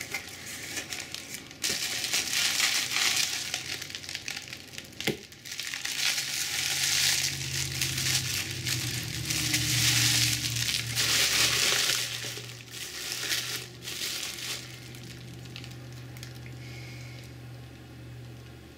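Clear plastic wrap crinkling and crackling in the hands as a webcam is unwrapped, after some rustling of the cardboard box. The crinkling dies away about 13 seconds in, leaving a low steady hum that runs underneath from about six seconds in.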